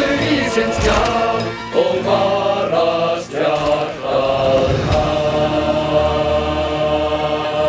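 Male chorus singing in Icelandic with orchestral backing, the closing line held as one long note from about five seconds in.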